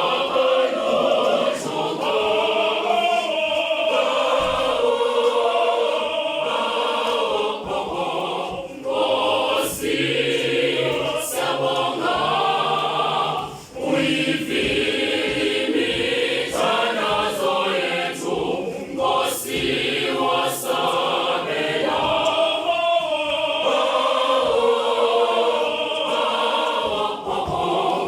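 High school choir singing unaccompanied, several voice parts in harmony, with brief breaks between phrases.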